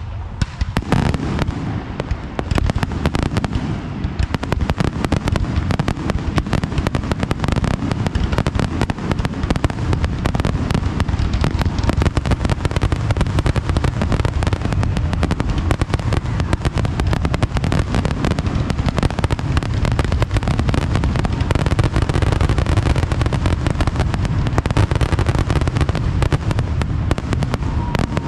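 Aerial firework shells bursting in a rapid, continuous barrage of distant bangs and crackles, with many reports overlapping; the pace picks up about two seconds in.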